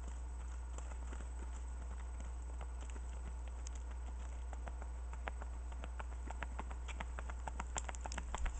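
Hoofbeats of a smooth-gaited bay mare under a rider, crunching on a gravel drive and then clopping on pavement, growing louder over the last few seconds as she comes close. A steady low rumble runs underneath.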